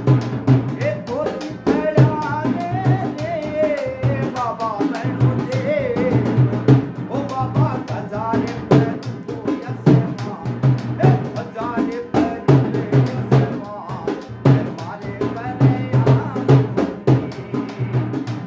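Folk music on a hand-played, rope-tensioned two-headed barrel drum and a hand-pumped harmonium: a steady, fast drum rhythm of deep and sharp strokes under a wandering harmonium melody.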